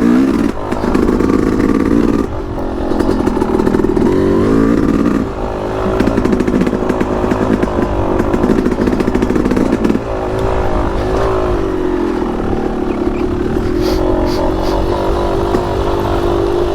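Yamaha YZ250X 250cc two-stroke single-cylinder dirt bike engine running under way, its pitch rising and falling over and over as the throttle opens and closes.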